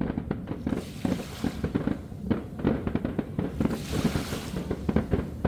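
Fireworks going off in a rapid, continuous string of bangs and crackles, several a second.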